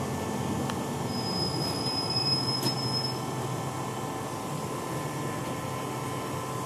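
Steady low rumble of a moving road vehicle heard from inside its cabin. About a second in, a thin high squeal runs for about two seconds.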